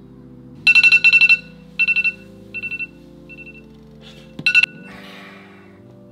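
iPhone alarm going off in rapid beeps, in several short groups over about four seconds; the last loud group stops abruptly as a hand reaches over to switch it off. Soft background music plays under it.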